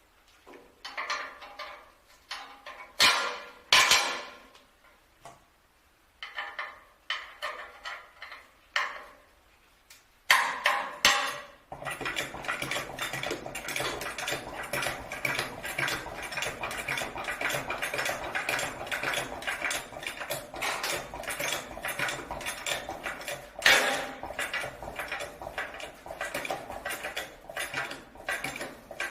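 Separate metallic clanks and knocks of metal parts being handled, then from about twelve seconds in a steady, rapid crackling that keeps going.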